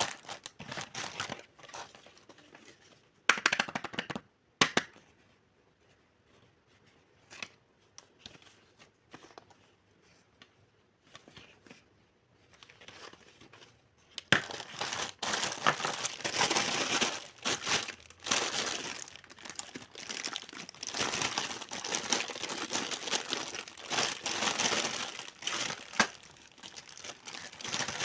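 Packaging being handled and torn open in an unboxing: scattered rustles and a few sharp snaps at first, then a quieter stretch, then continuous crinkling from about halfway through.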